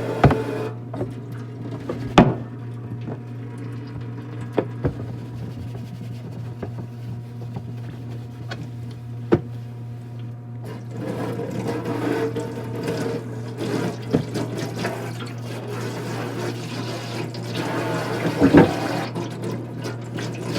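Washing dishes at a kitchen sink: tap water running, stronger from about halfway through, with occasional sharp clinks and knocks of dishes. A steady low hum sits underneath.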